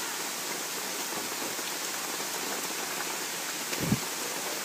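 Pouring rain falling steadily. A brief low thump comes near the end.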